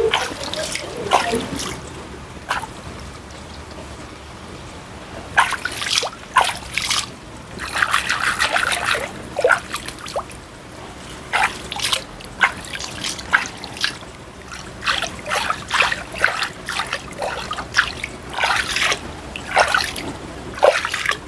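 Swimming-pool water being splashed and trickled, in irregular short bursts of splashing and dripping. There is a quieter stretch a few seconds in, then the splashes come thick and fast.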